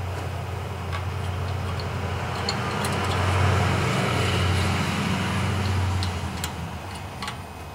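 A motor vehicle passing by: a low engine hum with road noise that swells about halfway through and then fades. A few light metallic clicks near the end come from small engine parts being fitted by hand.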